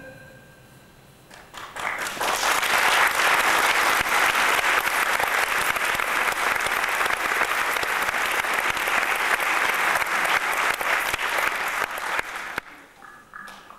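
Theatre audience applauding. The applause starts about a second and a half in, holds steady, and stops about a second before the end.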